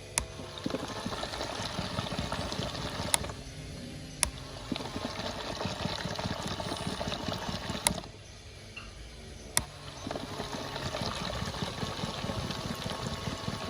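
Toy washing machine churning water in its drum, a steady sloshing wash. Twice the churning drops off for a second or two, each lull starting and ending with a sharp click.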